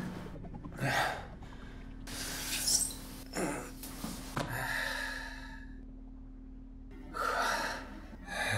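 A man breathing hard and gasping, catching his breath after physical exertion: about half a dozen heavy breaths, one of them a longer exhale near the middle.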